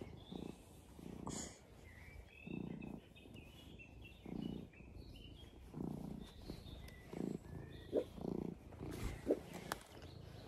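Domestic cat purring close up, in low rhythmic swells about every second and a half, rising and falling with its breathing.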